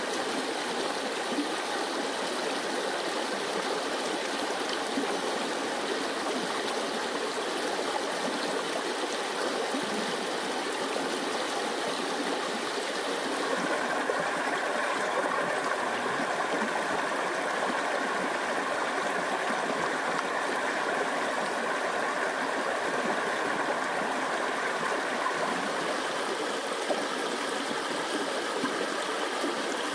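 A small forest stream flowing over rocks, a steady wash of running water. About halfway through, the sound shifts and grows slightly louder.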